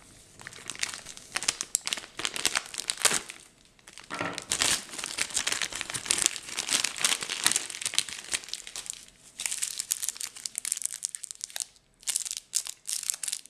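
Clear plastic MRE accessory bag and the small packets inside it crinkling and rustling as they are handled, in irregular bursts with two short pauses.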